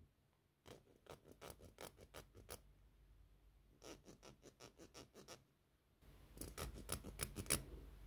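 A fingertip scratching in quick short strokes across the knurled metal grips of mechanical pencils: first the Rotring 800's finer, deeper knurling, then from about four seconds the Graphgear 1000's grip with rubber ovals. Faint, with two runs of strokes and a louder run near the end.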